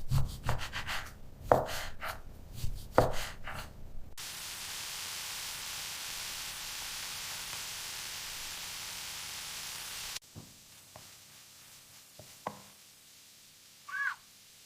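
A run of sharp knocks for about four seconds, then a steady hiss for about six seconds that cuts off suddenly, then a few faint clicks and a short cat meow near the end.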